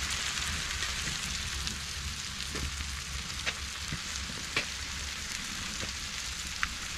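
Pork belly sizzling on aluminium foil on a hot steel wood-stove top: a steady frying hiss with a few sharp pops of spitting fat.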